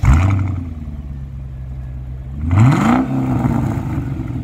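Mercedes-Benz SL500's 5.0-litre V8 through a Brabus-style aftermarket exhaust, firing up with a flare of revs and settling into a steady idle. About two and a half seconds in it gets one quick blip of the throttle that rises and drops back to idle.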